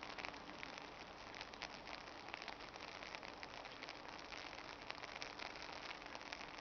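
Steady outdoor hiss packed with many fine crackling ticks, like light rain falling, over a faint steady low hum.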